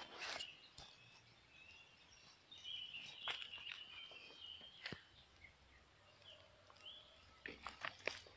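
Faint outdoor ambience with bird calls chirping at two moments and a few light clicks. Near the end come crunching footsteps on a stony trail.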